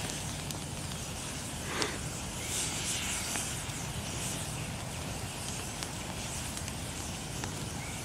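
Bonfire of brush and green logs burning, a steady hiss with a few sharp crackles, one louder about two seconds in.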